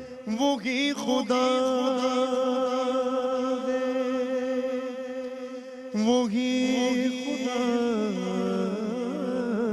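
A man singing an Urdu hamd, a devotional song in praise of God, into a microphone without instruments. He holds long notes with ornamented turns, starts a new phrase about six seconds in, and steps down in pitch near the end, over a steady held drone.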